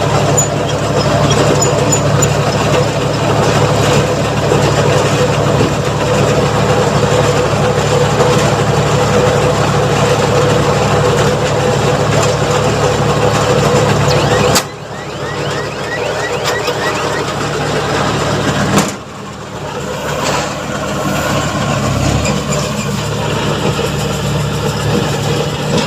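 Tractor engine running steadily while driving a round straw baler, with the baler's steady mechanical clatter. The sound drops away suddenly about 15 s in, and again about 19 s in, then carries on more thinly.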